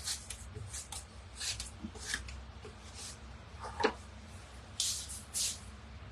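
Faint, scattered short rustles and brushing sounds of hands handling things, with a light tap about four seconds in.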